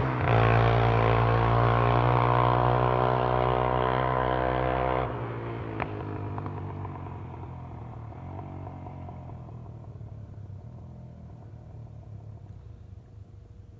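Honda 300EX ATV's single-cylinder four-stroke engine running at a steady speed. About five seconds in it drops off suddenly, then fades steadily away.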